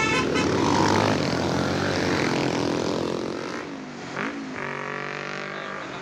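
A bus passing close by on an uphill road, its engine and tyres loud and then fading over about three seconds. From about four and a half seconds in, the steady engine drone of another bus approaching.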